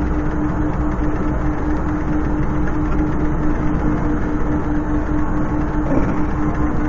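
Steady casino-floor din of slot machines: a dense, even wash of noise with a constant low hum tone running through it.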